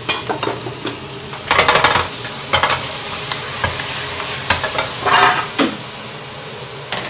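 Shrimp, green pepper, carrot and onion sizzling steadily in a hot pan as they are stir-fried with their seasoning, with a few louder bursts of the food being stirred and scraped against the pan, about one and a half, two and a half and five seconds in.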